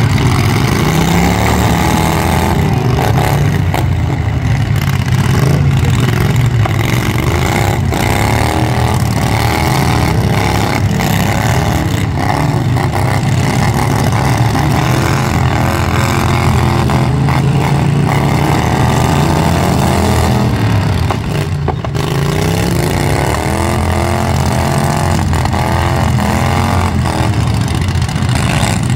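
Several modified racing lawn mower engines running hard together, their overlapping pitches rising and falling again and again as the mowers accelerate and back off.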